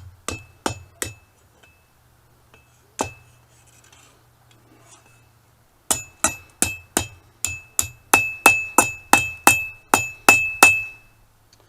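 Blacksmith's hammer striking hot steel on an anvil, each blow ringing with a high metallic tone: four quick blows at the start, a single one about three seconds in, then a steady run of about fourteen blows, roughly three a second, from about six seconds in.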